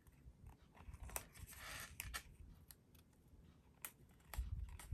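Paper being handled on a desk: a few light taps and clicks, a short rustle about one and a half to two seconds in, and soft bumps near the end.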